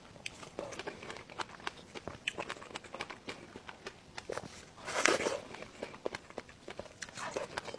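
A person eating: many small clicks and crunches of chewing and biting, with one louder, noisier burst about five seconds in.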